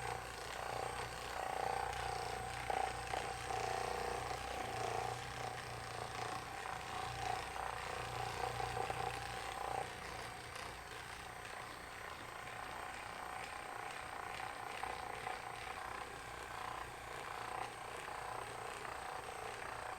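Handheld percussion massage gun running with a steady motor buzz as it is pressed into the upper back muscles, switching off about halfway through.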